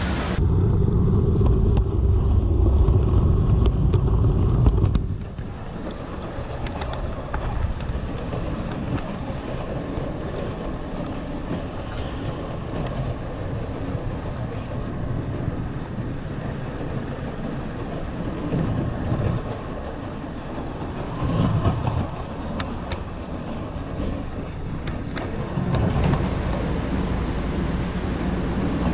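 HO scale model train running along its track: a steady rolling rumble with faint clicks, heard close up. A louder low rumble in the first five seconds cuts off suddenly.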